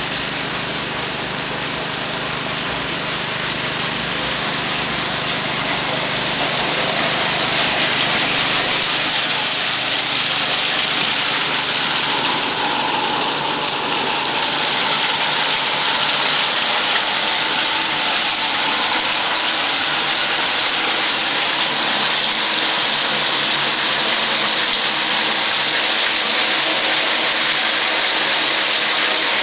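Water and salmon fry gushing through a large hose into a truck's fish transport tank, over an engine running steadily. The rush of water grows louder about six seconds in and holds.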